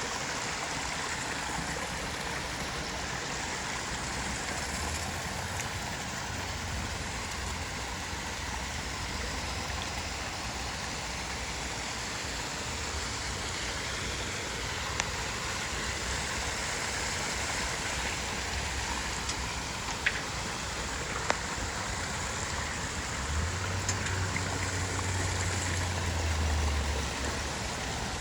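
Water cascading steadily down a backyard waterfall and a chain of small falls into ponds, an even rushing and splashing. A low rumble rises under it for a few seconds near the end.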